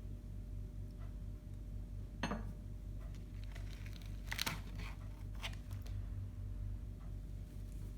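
Hand tools and their wrapping being handled: a sharp knock about two seconds in, then a run of short crinkles and clicks, over a steady low hum.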